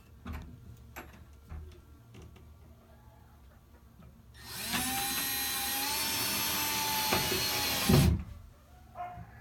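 Power drill driving a screw, running steadily with a motor whine for about three and a half seconds from about four seconds in, then stopping with a thump. A few light knocks before it.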